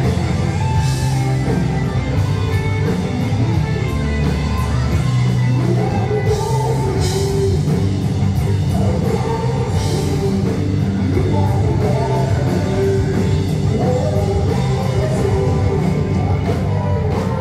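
Loud rock music with singing, electric guitar and drums, running steadily with a regular beat.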